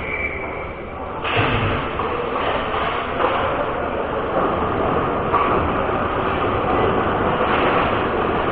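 Ice hockey game play in an arena: a steady rush of skates scraping the ice, echoing in the rink, with faint distant voices.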